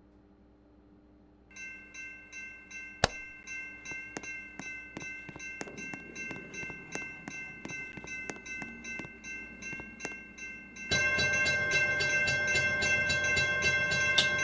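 Harbor Breeze Voyage 52-inch ceiling fan running: a steady motor whine with an even ticking about two or three times a second. About three quarters of the way in it steps up clearly louder and fuller, as on a change to a higher speed.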